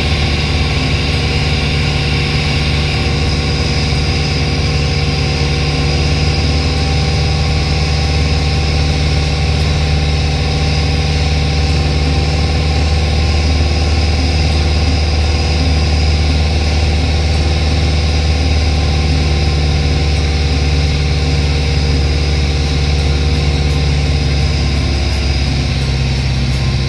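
Light aircraft's piston engine and propeller droning steadily, heard from inside the cockpit on final approach. Near the end the pitch drops as power is pulled back for the touchdown.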